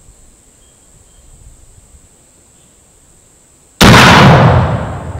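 Percussion-cap muzzle-loading rifle firing a heavy magnum charge of about 95 grains of 3F black powder: a single loud shot nearly four seconds in, its report dying away over a second or more.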